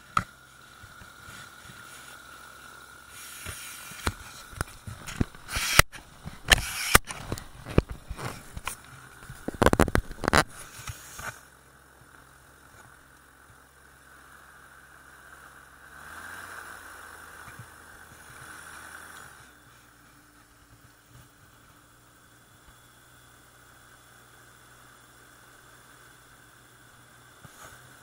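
Magni M16 autogyro's engine running steadily at low power, with a steady high whine, muffled as if through a camera case. Between about four and eleven seconds in, loud irregular knocks and crackles hit the microphone.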